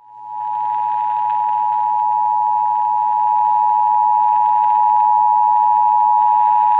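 Emergency Alert System two-tone attention signal: two steady tones near 1 kHz (853 and 960 Hz) sounding together without a break, over a faint hiss.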